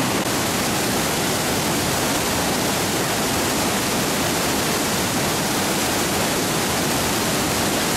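Floodwater rushing through a small creek in full flood, churning over whitewater rapids in a loud, steady rush.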